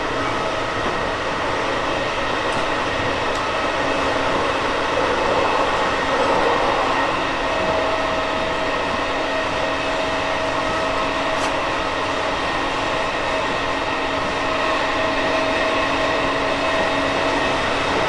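Interior running noise of a Tokyo Metro 16000-series subway car (Toshiba IGBT inverter, permanent-magnet synchronous motors) travelling at about 55 km/h: a steady rush of wheels on rail with a few faint steady hums, one of which grows a little stronger about seven seconds in.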